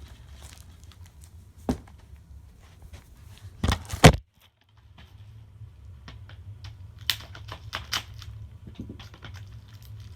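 Scattered plastic clicks and taps of a DVD case being handled and opened, with the loudest knocks just before four seconds in, over a low steady hum.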